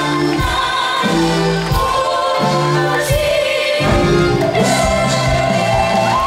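A live band playing a pop show tune with a bass line and sustained chords, while a group of voices sings along together.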